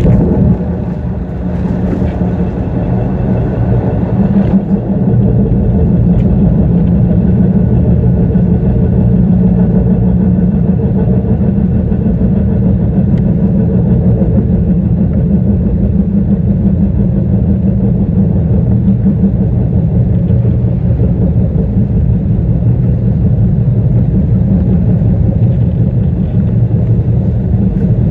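Subway train running: a loud, steady low rumble that builds over the first few seconds and then holds.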